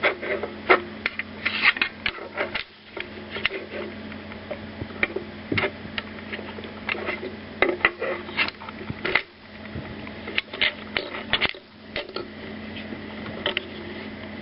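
Irregular small clicks and taps as a Leatherman Style CS multitool and a folding ruler are handled and lined up for measuring, over a steady low hum.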